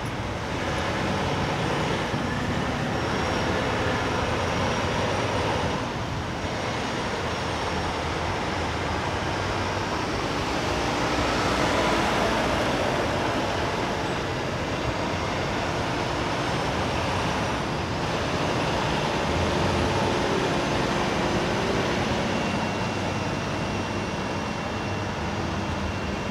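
Diesel engines of big-rig semi tractors running as they drive slowly past on the road, over steady traffic noise. The sound swells loudest around the middle as a truck passes close.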